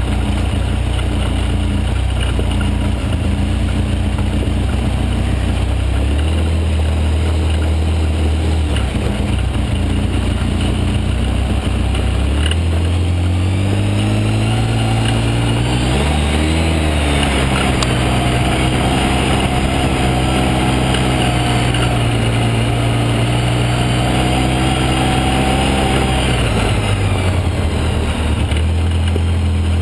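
Quad (ATV) engine running steadily at low speed. Its pitch rises a little past the middle and falls back near the end.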